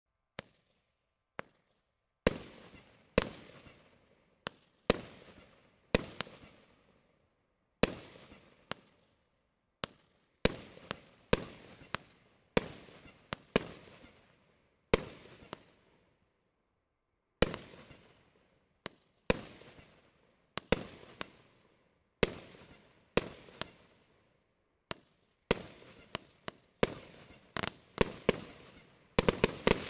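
A 25-shot, 30 mm fireworks cake firing shot after shot: sharp bangs roughly one a second, each fading away quickly. Near the end the bangs come in a quick run.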